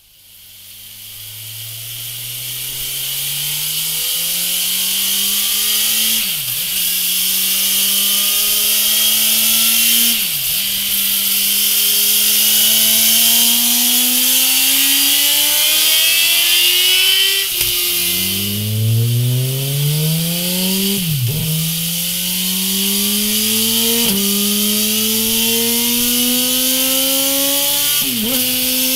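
2017 Suzuki GSX-R1000's inline-four engine under full load on a dyno, rising in pitch through the gears and dropping back briefly at each upshift. The first pull runs on the stock exhaust; a little past halfway it cuts to a second pull through a MIVV GP slip-on silencer.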